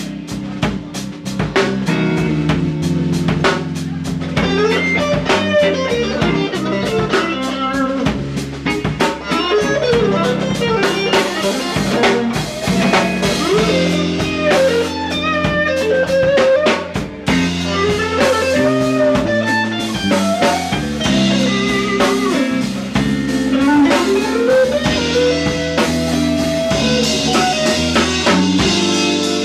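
Live blues band playing an instrumental passage: an electric guitar lead with bending notes over a steady drum-kit beat and a sustained low accompaniment.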